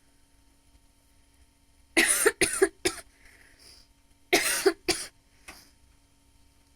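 A woman's smoker's cough: two short coughing fits of about three coughs each, the first starting about two seconds in and the second about two seconds later, trailing off with a faint last cough.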